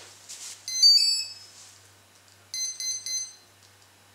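A 40A Hype Alpha brushless ESC plays its start-up tones through the 2826 brushless motor as the 3S LiPo is connected. A short tune of stepped beeps comes about a second in, then three short beeps near three seconds in. These are the ESC powering up and arming normally.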